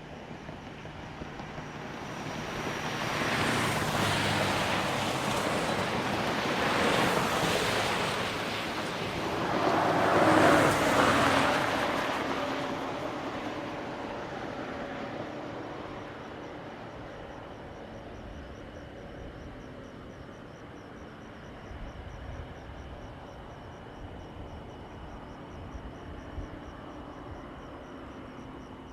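Road traffic: vehicles pass by in quick succession, their tyre and engine noise swelling and fading three times in the first twelve seconds, loudest about ten seconds in. After that a steadier, quieter traffic hum continues.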